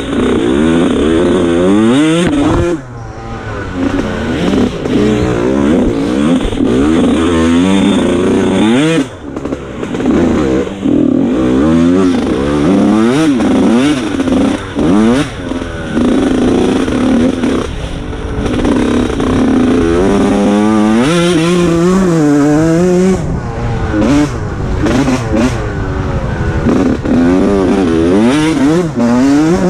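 Small off-road racing engine heard close up from onboard, revving hard and falling back again and again as it runs through mud. The revs drop off briefly about three seconds in and again about nine seconds in.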